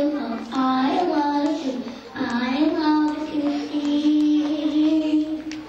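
A young boy singing into a handheld microphone, his voice sliding between notes and then holding one long note that stops near the end.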